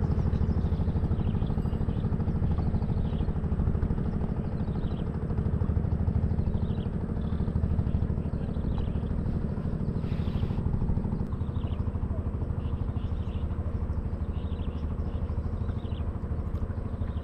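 Hangkai 12 hp outboard motor running steadily and pushing an inflatable boat along, with a fast, even pulsing rumble that eases slightly about eleven seconds in.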